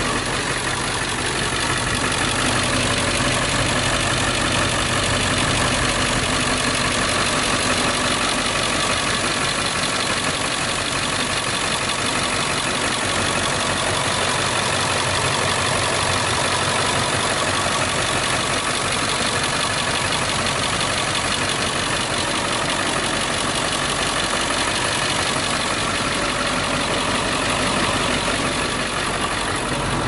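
2001 International 3800 school bus's diesel engine idling steadily.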